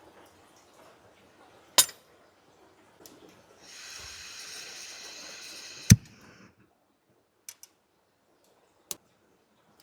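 A sharp click, then a steady hiss lasting about two seconds that ends with a heavy knock, followed by a few faint ticks.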